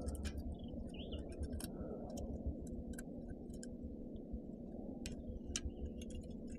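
Baitcasting fishing reel being wound in, giving a string of light irregular ticks and clicks over a steady low rumble.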